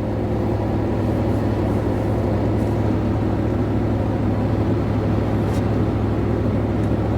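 Truck engine running steadily with an even low hum and no change in speed.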